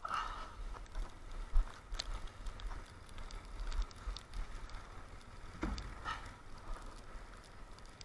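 Split firewood knocking together as an armload of snowy logs is gathered and carried, with footsteps crunching in snow. Irregular knocks stand out over a low rumble, the loudest about two seconds in and near six seconds in.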